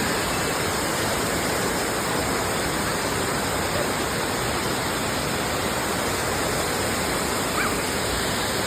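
Steady rush of falling water from a waterfall, an even, unbroken hiss. A few faint, short whistle-like glides come through it near the end.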